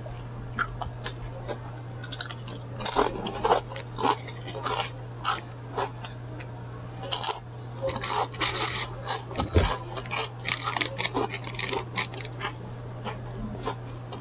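Close-miked crinkling and crunching as a paper sandwich wrapper and the food in it are handled: a dense run of quick, crisp crackles.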